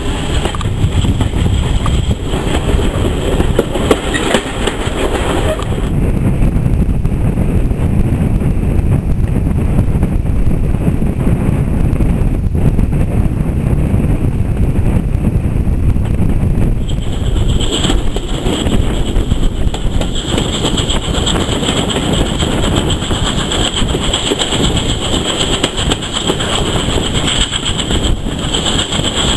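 Passenger train carriage running along the line, heard from an open window: a steady rumble of wheels on rails. A higher hiss fades out about six seconds in and comes back around seventeen seconds.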